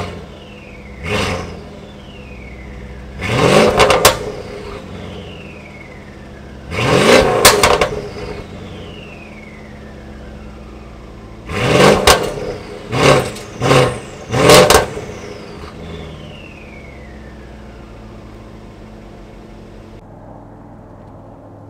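Mercedes S550's twin-turbo V8, with catless downpipes, resonator delete and a Stage 2 tune, being revved while parked. There are about eight quick blips, the longer ones followed by sharp pops and a falling whistle. It then settles back to idle, and gets quieter near the end.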